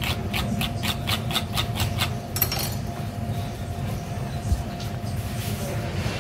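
A filleting knife clicking rapidly over the bones of a halibut as a fillet is cut free, about five clicks a second for two seconds, then a brief rustle, over a steady low background hum.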